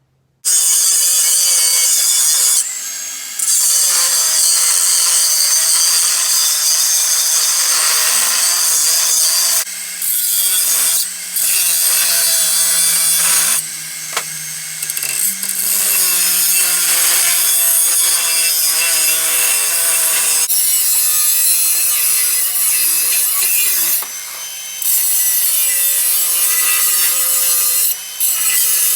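An electric power tool cutting and grinding the metal of a truck cab hinge: loud, its motor pitch wavering as it bites, in long passes with several brief let-offs.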